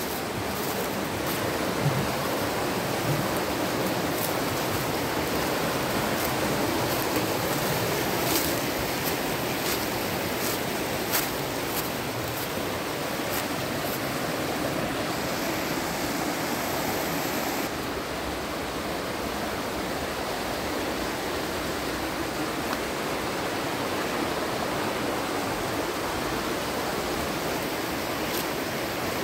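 Mountain stream rushing steadily over rocks and small cascades, with a few light ticks during the first dozen seconds.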